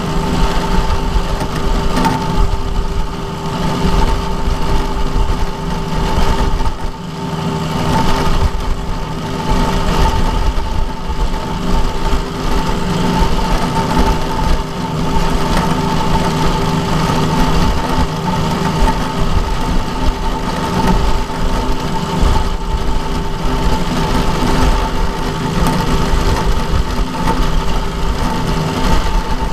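Vertical milling machine running, its end mill taking a side-cutting pass along the edge of a metal block. A steady machine hum carries a high tone with cutting noise over it, and it dips briefly about seven seconds in.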